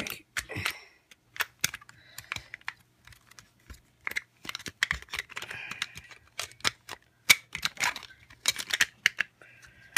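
Hard plastic parts of a Baymax action figure clicking and knocking as they are pulled out, turned and snapped back into place. The clicks are irregular, several a second.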